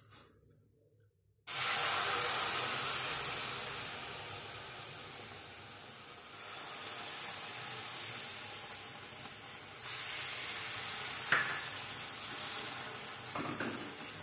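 Hot water poured into hot ghee-roasted semolina in a kadhai, sizzling and hissing. It starts suddenly about a second and a half in and carries on steadily, getting louder again a few times.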